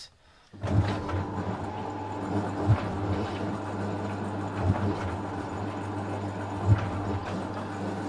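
Fisher & Paykel SmartDrive washing machine's direct-drive motor trying to start the spin: a steady electrical hum with a thump about every two seconds, while the bowl does not spin. This stuck-at-spin thumping is the SmartDrive fault that the uploader cures by turning the bowl by hand, and which tight shaft bearings can also cause.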